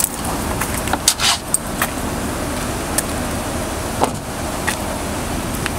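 Police patrol SUV running steadily. Over it come a few light clicks and a short metallic jingle about a second in, and single clicks near three and four seconds.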